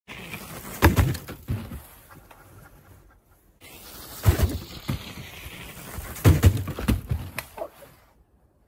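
Several sharp knocks and clattering thuds of a bicycle and hard plastic jump-ramp pieces hitting the ground and each other, about a second in and again in a cluster between four and seven and a half seconds in. The sound cuts off to silence just past three seconds and near the end.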